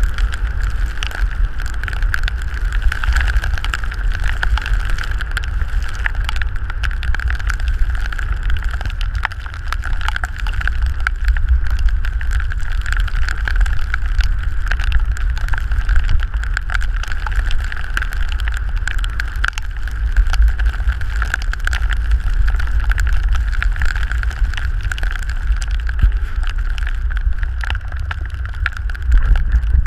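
Handcycle ridden at speed on a flooded, wet track: wind buffets the cycle-mounted camera's microphone with a heavy rumble, and the tyres hiss through standing water. A steady high whine from the handcycle runs beneath, with many small ticks of water spattering the camera housing.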